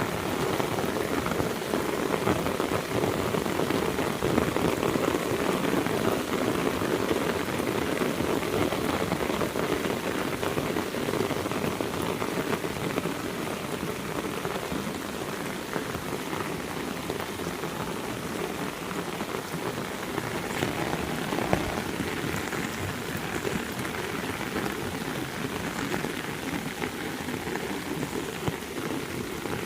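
Heavy rain falling and pattering steadily on surfaces, easing slightly about halfway through.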